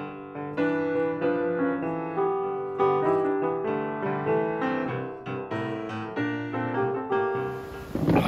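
Intro music played on piano: a melody of struck notes, each ringing and decaying, that fades out near the end. A brief rush of noise follows just before speech begins.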